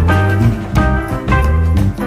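Background music: an upbeat swing-style tune with bass, guitar and drums, playing at a steady beat.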